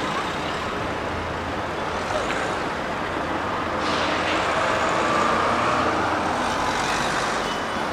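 City road traffic running steadily. About four seconds in, a vehicle passes close and the noise swells, beginning with a sudden hiss.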